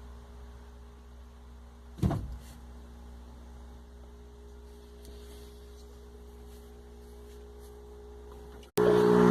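Gap between songs on a car sound system: a faint steady hum with one short knock about two seconds in. Near the end the next funk track starts suddenly and loud.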